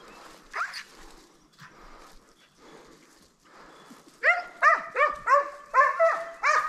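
Hunting dog barking: a single rising yelp about half a second in, then from about four seconds in a quick run of about seven loud barks, around three a second. Footsteps rustle in the quieter stretch between them.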